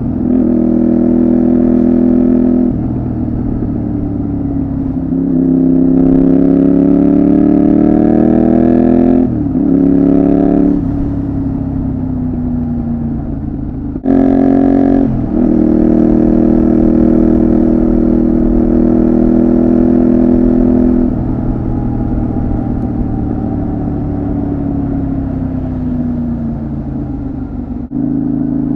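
Honda VTR250's 250 cc V-twin running through a Moriwaki complete exhaust system, the bike being ridden. The engine note rises under throttle, drops sharply at several gear changes and holds steady while cruising, then falls slowly as the bike slows, before picking up again near the end.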